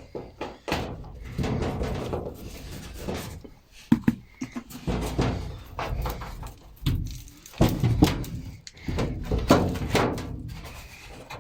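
Irregular thunks and knocks with clattering and rustling between them, as washing machine panels and parts are handled to reach the water pump. The sharpest knocks come about 4, 8 and 9.5 seconds in.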